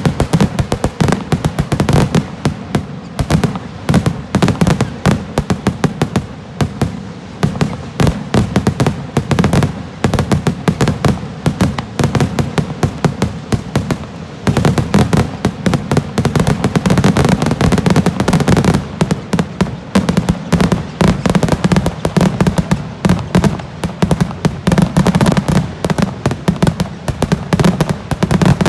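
Fireworks display going off in a dense, continuous barrage: many loud bangs and crackles a second, with a brief lull about halfway through.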